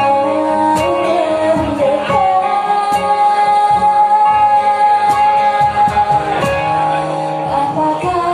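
A woman sings live over two strummed acoustic guitars, holding one long note for about four seconds in the middle.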